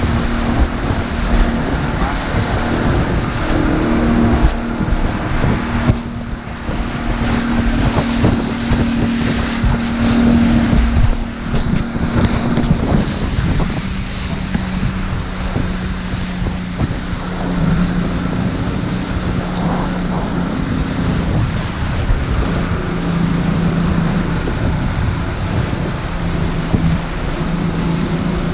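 Fishing boat's engines droning steadily at cruising speed, with wind buffeting the microphone and the wake rushing past the hull. The engine note sits a little lower from about halfway through.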